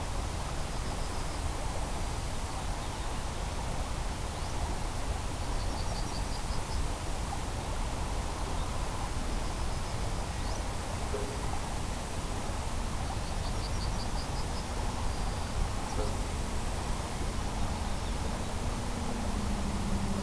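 Outdoor ambience in open countryside: a steady rushing noise, with wind buffeting the microphone. Short high chirping trills come twice, each a quick run of ticks, and a low steady hum joins near the end.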